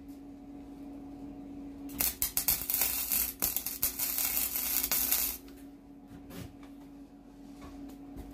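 Electric arc welding on a cracked steel lawn-mower deck: a burst of welding-arc crackle and sputter starting about two seconds in and stopping after about three seconds, filling in the crack. A steady low hum runs underneath.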